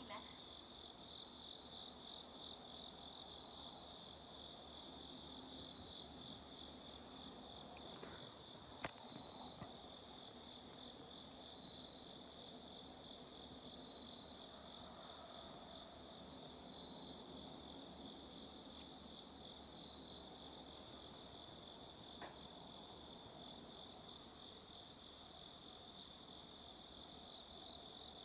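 A steady chorus of night insects chirping in rapid, continuous trills. A single sharp click about nine seconds in.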